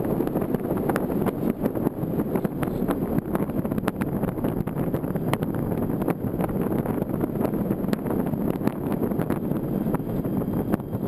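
Air rushing over a GoPro camera mounted on a Parkzone Radian Pro RC glider in flight: a steady wind rumble on the camera's microphone, with scattered small clicks.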